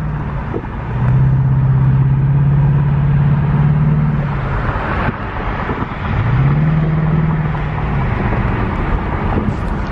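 Car engine droning at a steady pitch under tyre and road noise, heard from inside the cabin while cruising on a highway. The engine tone fades out for a moment near the middle, then comes back with a short rise in pitch.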